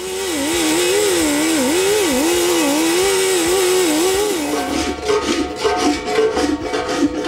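Die grinder with a small sanding disc grinding down a TIG weld bead on an aluminum gas tank, its whine wavering in pitch as it is pressed into the work. It stops about four and a half seconds in, and a hand body file then scrapes along the weld in rhythmic strokes, about three a second.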